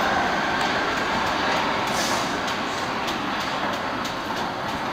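R46 subway train pulling away into the tunnel, its running noise on the rails slowly fading. A run of sharp clicks starts about two seconds in.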